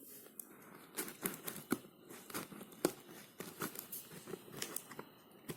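Cutting open a delivery box by hand: a run of irregular short scratches and clicks as the packaging is cut and torn.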